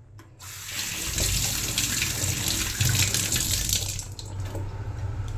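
Water running from a tap into a sink, starting about half a second in and easing off near the end.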